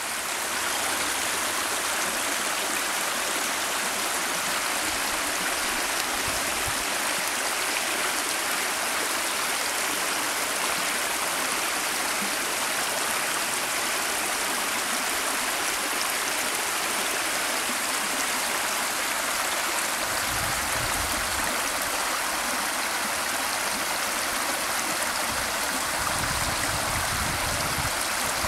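Creek water running steadily over and through a beaver dam of sticks and branches.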